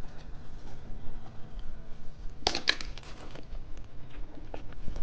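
Plastic candy packaging crinkling briefly about two and a half seconds in, among faint scattered handling ticks.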